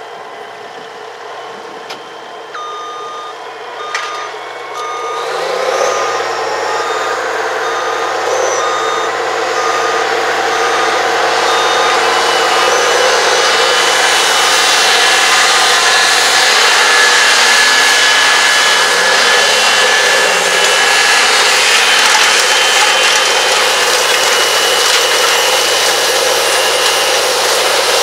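CAT Challenger MT865C rubber-tracked tractor pulling a Horsch Maestro planter through the field, its engine and running gear growing steadily louder as it approaches and then running loud and steady. Through the first half an electronic alarm beeps about once a second, then stops.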